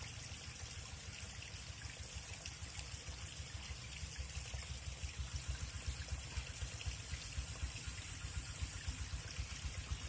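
River water flowing and splashing in a steady rush, with a choppy low rumble that grows stronger from about four seconds in.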